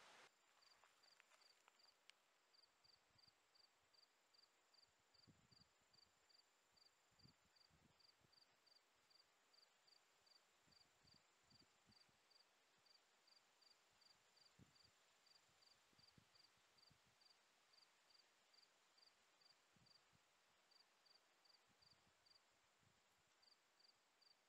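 Near silence, with a faint cricket chirping evenly, two or three short high chirps a second, and a fainter steady insect trill above it that comes and goes.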